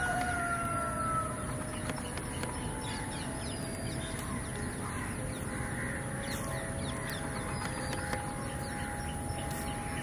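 Crows cawing, with a steady background of noise around them.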